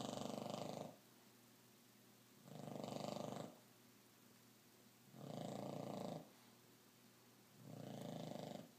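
Dog snoring in deep sleep: rattling snores about a second long, coming roughly every two and a half seconds, four in all.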